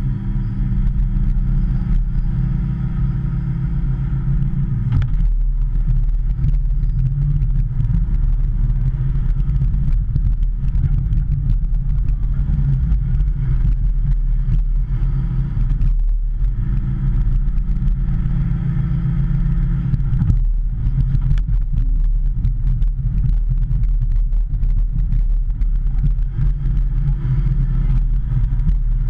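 Hitachi ZX210 excavator's diesel engine running steadily while the machine digs, its note shifting a few times as the hydraulics take load, with scattered short clicks and knocks.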